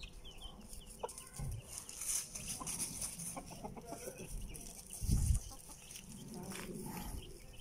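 Domestic chickens clucking softly as they forage, with a brief low thump about five seconds in.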